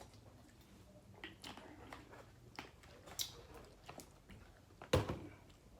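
Close-up eating sounds: quiet chewing and scattered small clicks and crackles of food being handled, with one louder knock about five seconds in.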